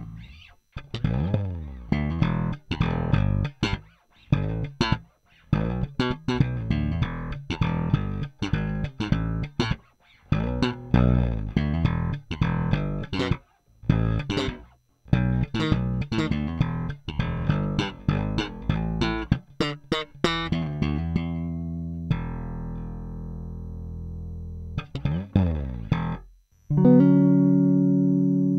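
Electric bass played solo: a run of quick plucked notes and short phrases with brief gaps. Then one note is left ringing and fades away, and a loud new chord rings out near the end. It is a tone demonstration of the bass through one of the volume pots being compared.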